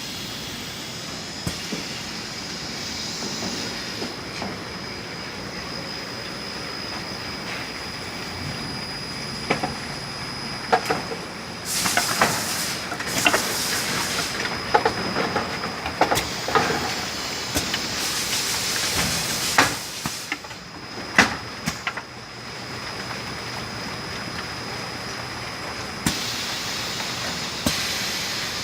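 A 27-metre factory production line running: a steady machine hum with a constant high whine. From about twelve seconds in, for roughly ten seconds, it adds clanks, rattles and short bursts of hiss.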